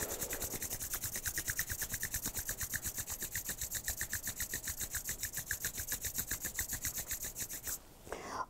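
Two palms rubbed briskly back and forth against each other in quick, even strokes, about eight a second, stopping shortly before the end.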